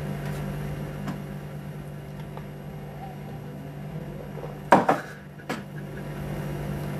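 Room tone: a steady low hum, broken by two short bursts of noise, about four and three-quarter seconds and five and a half seconds in.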